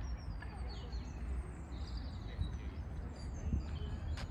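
Several small birds chirping and singing, many short high calls scattered throughout, over a steady low rumble.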